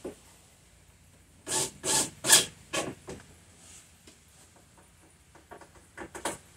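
Cordless drill working into the wood in short bursts: about five in quick succession from about a second and a half in, then a few more near the end.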